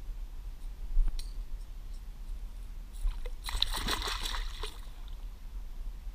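A small hooked fish, held in the water by a gripper, thrashing at the surface and splashing for about a second, starting some three and a half seconds in. A sharp click about a second in.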